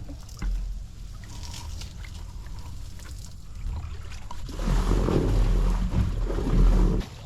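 Water sloshing and trickling around an aluminum boat, with a louder rumbling stretch in the second half that cuts off suddenly near the end.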